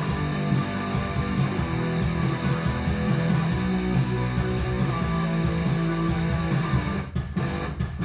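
Guitar music with bass, played back through hi-fi speakers driven by a Fosi Audio ZA3 class-D amplifier (TPA3255 chip). The music thins out briefly a little before the end.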